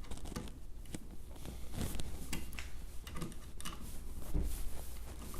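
Irregular light clicks and knocks of small metal hardware, nuts, bolts and brace tubing, being handled and fitted on a 3D printer frame.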